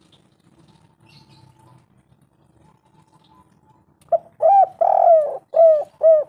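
Spotted dove (tekukur) cooing: a phrase of about six arched coos starting about four seconds in. The third coo is longer and rougher than the others.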